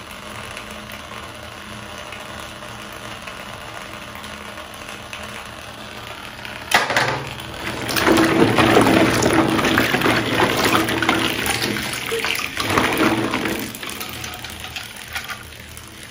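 Hollow plastic play balls rattling and clattering against each other as a hand rummages through a bucketful of them. It starts suddenly about seven seconds in, after a faint steady hiss, and tails off near the end.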